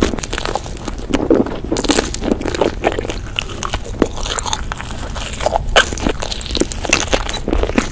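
Close-miked eating: a person biting and chewing crunchy food, with a quick, uneven run of crisp crunches and crackles.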